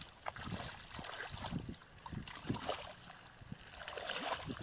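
Hands and feet splashing and sloshing in shallow muddy water, in irregular splashes, as fish are groped for by hand in a drained paddy.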